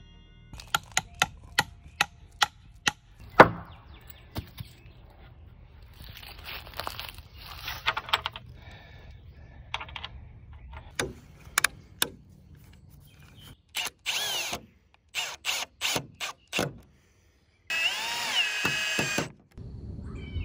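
Short runs of a cordless drill spinning up and winding down as it drives screws into lumber, cut off abruptly several times, with the longest run near the end. Before that, a string of sharp knocks, the loudest about three and a half seconds in.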